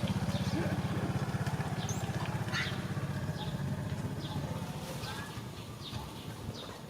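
A motor vehicle's engine running with a fast low pulse, fading steadily as it moves away, while short high chirps sound over it.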